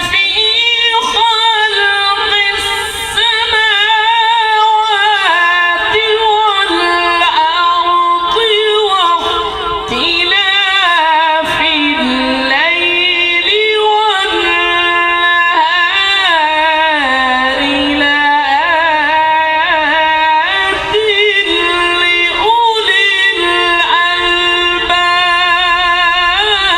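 A man's voice reciting the Quran in the melodic tilawat style, drawing out the words in long held phrases with wavering, ornamented pitch, into a microphone.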